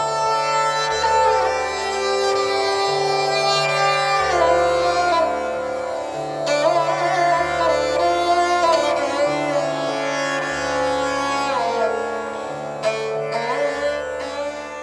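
Instrumental background music: a melody with bending, sliding notes over a repeating low bass pattern.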